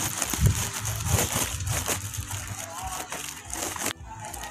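Rustling, crackling noise of wind and handling on a phone microphone while walking, with a low rumble; it cuts off suddenly near the end.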